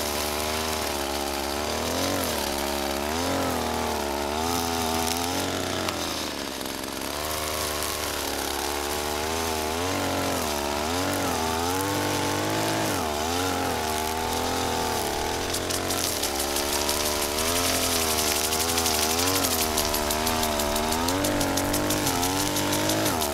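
Two-stroke gas string trimmer running, its engine revving up and falling back over and over.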